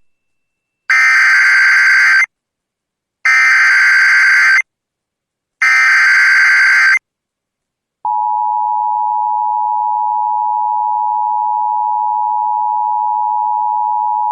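Emergency Alert System activation: three identical SAME data bursts, each a harsh, buzzy warble about a second and a half long with a second's silence between them. A steady two-tone EAS attention signal follows about eight seconds in and holds on, announcing the warning that follows.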